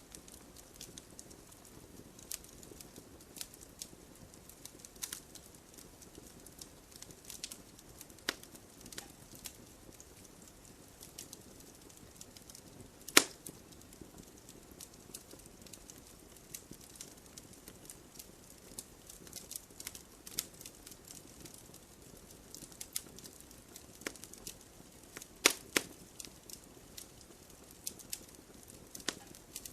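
Wood campfire crackling: irregular sharp snaps and pops over a soft steady hiss, with one loud pop about halfway through and a few louder ones close together near the end.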